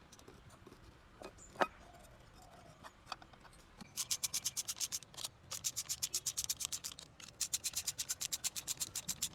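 Rapid rhythmic rubbing strokes, about eight a second, in three runs beginning about four seconds in, after a few light clicks and one sharper click.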